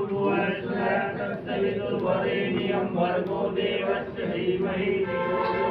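Hindu havan mantras being chanted aloud as offerings are made into the sacred fire.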